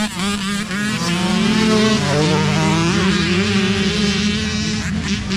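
Several youth dirt bike engines revving and accelerating together, their pitches wavering up and down as the riders race across the field.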